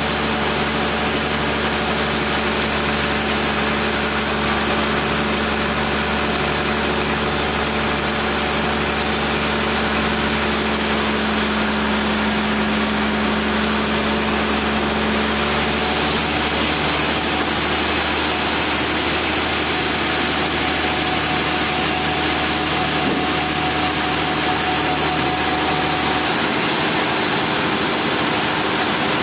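Sawmill machinery running steadily, a constant engine-like drone with a hum whose pitch shifts about halfway through.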